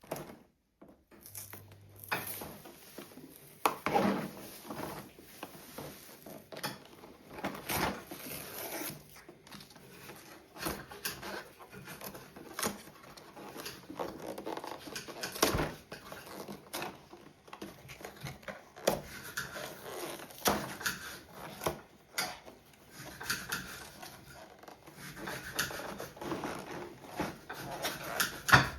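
Hands handling and opening product packaging: irregular rustling with many clicks and knocks, a few of them sharper and louder.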